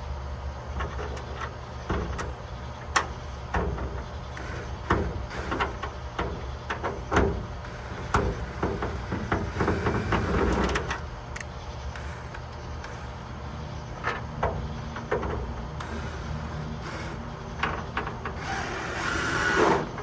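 Irregular clicks, knocks and rattles of metal trunk-lock parts being handled and fitted, over a steady low hum. Near the end a noisy sound swells for about a second and a half, then cuts off.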